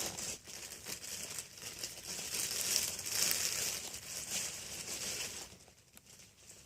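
Packaging rustling as it is handled and pulled off a Halloween animatronic's head, mostly a high, noisy rustle that dies down about five and a half seconds in.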